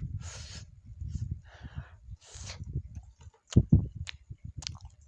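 Close-up mouth sounds of someone eating fried meatballs: chewing with soft wet thuds, three hissing breaths in the first few seconds, then several sharp lip smacks.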